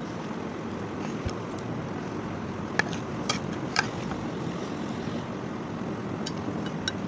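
A metal spoon clinking a few sharp times against a plate while eating, three clinks about three seconds in and two near the end, over a steady background hiss and rumble.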